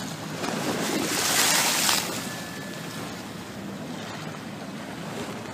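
Choppy sea washing against a stone quay wall, with wind. One wave surges and breaks between about half a second and two seconds in, the loudest moment, then the water settles back to a steady wash.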